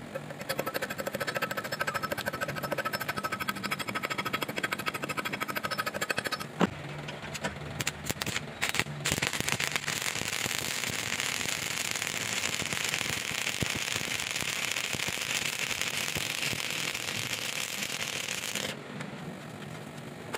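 A stick-welding (shielded metal arc) electrode arc crackling and sizzling steadily while a fillet bead is laid on steel plate. The arc cuts off abruptly near the end. Before it, a fast, even rasping runs for about six seconds, followed by a couple of seconds of sharp irregular pops as the arc is struck.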